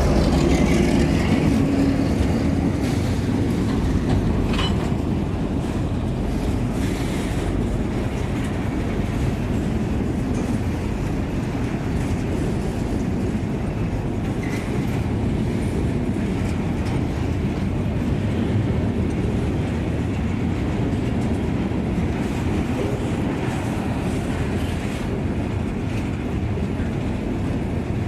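Freight train rolling past on the track: steady rolling noise of wheels and wagons, with a few brief high squeals.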